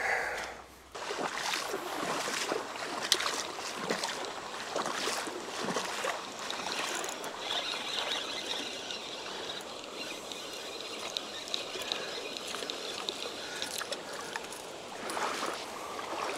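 Shallow stream water trickling, with irregular small splashes and sloshes. A faint high, steady tone runs for a few seconds around the middle.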